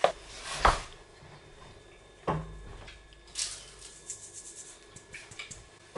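A few soft knocks and taps of kitchen utensils and containers being handled on a worktop between quiet stretches. The loudest is a low thud a little over two seconds in.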